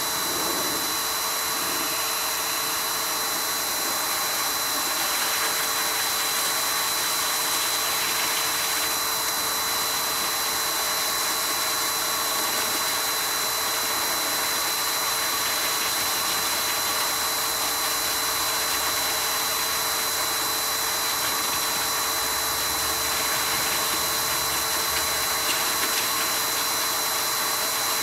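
Canister pet grooming blower dryer running steadily on a dog's coat: a constant rush of air with a steady high whine from its motor.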